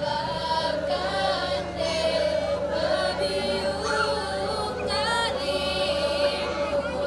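A group of voices singing together, holding long drawn-out notes.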